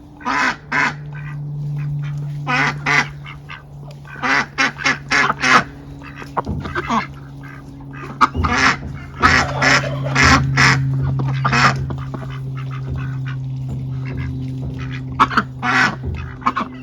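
Farm ducks quacking over and over, single calls and quick runs of calls, with a steady low hum underneath.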